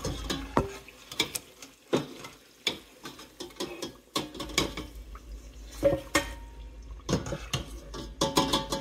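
Wire-mesh spider skimmer clinking and scraping against a stainless steel pot as fried dough pieces are lifted out of hot oil, with the oil bubbling and dripping. The knocks come irregularly, a dozen or so.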